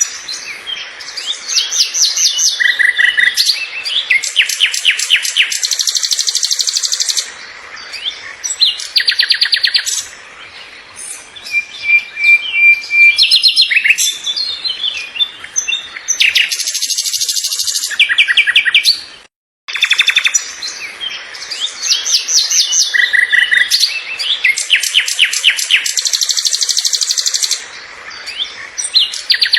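Several birds singing together: quick chirps and fast rapid trills, one short steady whistle. Everything cuts out briefly about two-thirds of the way in, then the same run of calls seems to start over.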